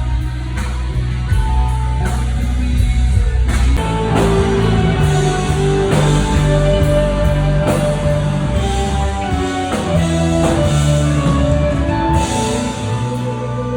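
A rock band playing live, with sustained melodic notes over a steady bass line.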